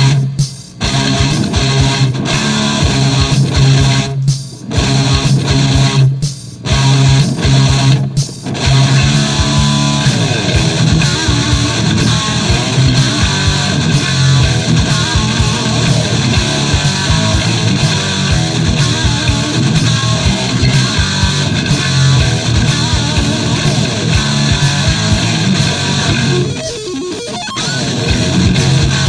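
Instrumental rock music led by electric guitar, with several brief stops between phrases in the first eight seconds and then continuous playing. The sound thins briefly near the end before the full sound returns.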